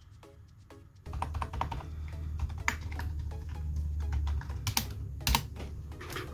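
Rapid, irregular keystrokes typed on a gaming keyboard, starting about a second in, over a steady low hum.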